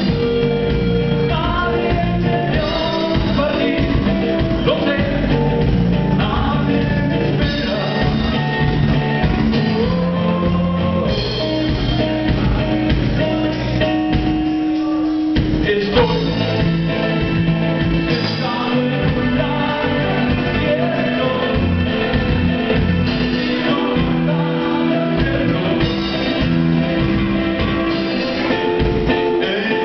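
Live rock band playing: electric guitar, bass guitar and drum kit, with singing. A little past halfway the bass and drums drop out briefly and come back in on a sharp hit.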